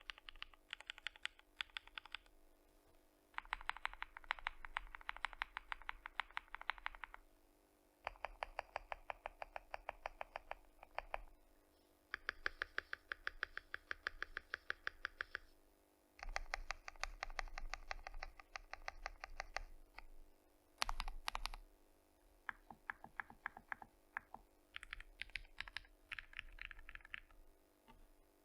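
FinalKey V65 R2 aluminium mechanical keyboard with Gateron Modern Gray switches and ABS doubleshot keycaps, fully foamed and tape-modded, being typed on fast. The typing comes in runs of a few seconds with short pauses between them, and a couple of sharper single strikes come about two-thirds of the way through.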